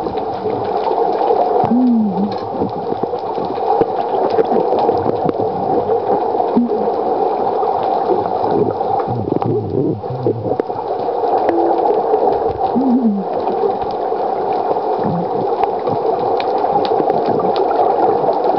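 Muffled underwater noise picked up by a waterproof camera held below the surface: a steady dense water rush with gurgling. A few short moaning tones rise and fall, about two, seven and thirteen seconds in.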